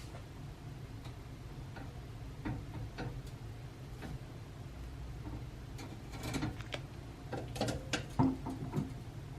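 Scattered light clicks and taps over a steady low hum, coming thicker about six to eight and a half seconds in.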